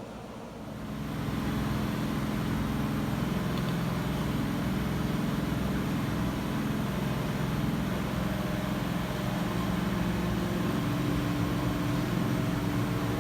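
A machine running steadily with a low hum, swelling in about a second in and then holding level.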